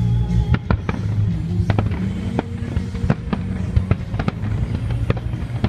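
Aerial firework shells bursting in an irregular series of sharp bangs, over music with a steady low bass.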